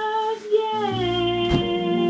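A woman's singing voice holds a long sung note that slides down to a lower held note partway through. Low instrumental backing notes enter underneath as the pitch drops, and there is a single sharp click about a second and a half in.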